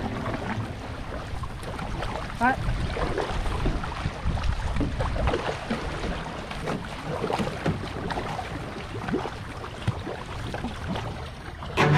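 Canoe paddles dipping and pulling through the water, with water splashing and rushing along the moving hull in an irregular run of strokes.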